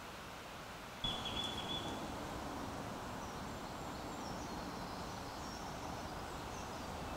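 Steady outdoor background hiss. About a second in, a high held note is heard, followed by faint high bird chirps.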